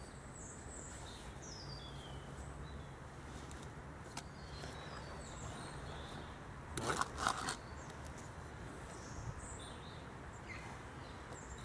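Quiet outdoor ambience with small birds chirping on and off, and a brief scuffing rustle, like hands working in sandy soil, about seven seconds in.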